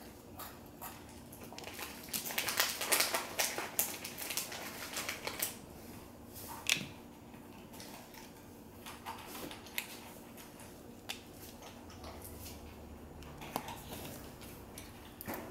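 Small plastic LEGO pieces clicking and rattling as they are handled and pressed together on a tabletop, with a dense flurry of clicks about two to five seconds in and scattered single clicks after that.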